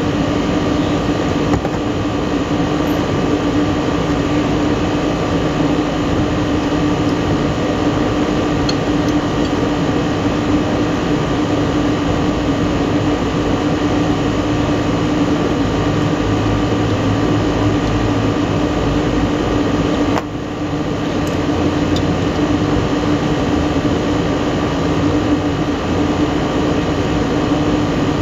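Steady drone of rooftop HVAC equipment running, with a constant hum, dipping briefly about twenty seconds in.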